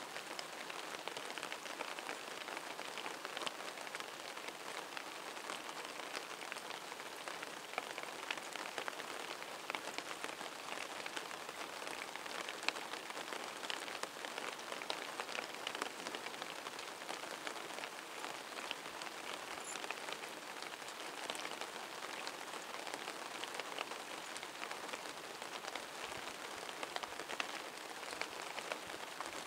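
Heavy rain falling steadily, a dense patter of drops on surfaces close by.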